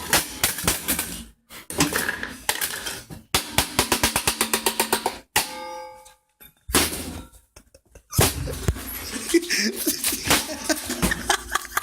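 Clattering knocks and clicks of hard objects being handled, with a fast run of taps about a third of the way in and a short ringing ding about halfway, broken by abrupt silences.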